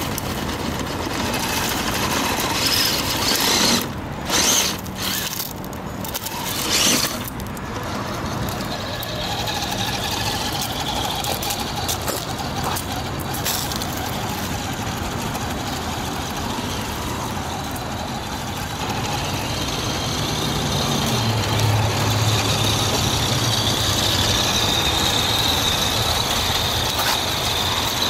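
Traxxas TRX-4 Sport RC crawler driving over a curb and dirt: its electric motor and gears whining while the tyres scrabble over dirt and concrete, with a few knocks between about four and seven seconds in as it bumps over the curb.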